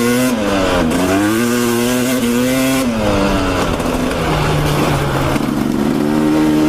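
Dirt bike engine running under way on a trail, its revs rising and falling. The pitch dips just under a second in and climbs back. About three seconds in it drops to a lower, steadier note, then rises again near the end.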